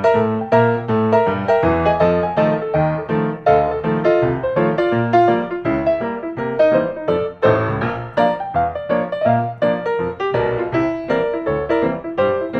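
Background piano music, a quick run of notes over a steady bass line.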